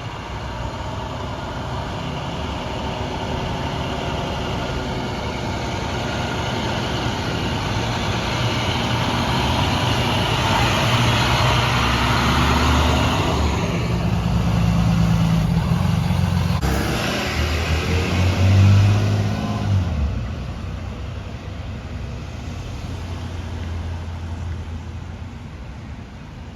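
2021 Blue Bird Vision school bus running, heard from inside the cabin: engine and road noise build as it picks up speed, with changes of engine pitch about midway, a brief rise and fall near twenty seconds in, then quieter, steadier running.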